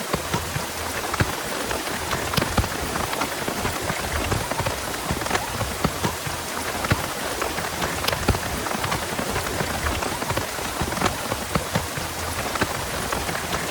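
Heavy rain falling steadily, with many sharp individual drop hits throughout.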